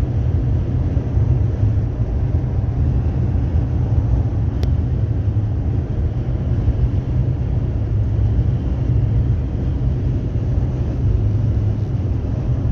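Car driving at speed: a steady low rumble of road and engine noise with an even hiss of wind and tyres over it.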